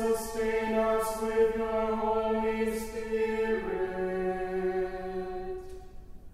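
Unaccompanied singing of a slow sacred chant or hymn: one voice line holding long notes. It steps down to a lower note about three and a half seconds in and dies away into the room's echo about two seconds later.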